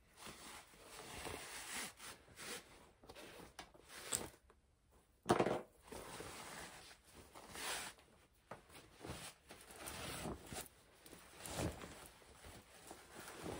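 Fabric rustling and scraping in irregular bursts as a drawstring cord is worked through the casing of a pants waistband with a bodkin, with one louder rustle about five seconds in.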